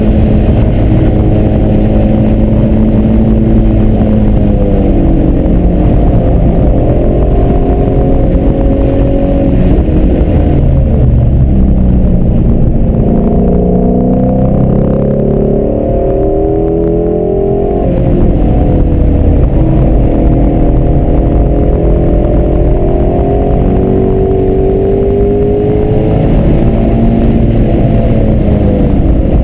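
Ford Mustang Shelby GT350's 5.2-litre flat-plane-crank V8 heard from inside the cabin under hard track driving, revving up through the gears with the pitch climbing and dropping back at each shift. About ten seconds in it comes off the throttle and the pitch falls for several seconds, as for braking into a corner, then it climbs hard again from around eighteen seconds.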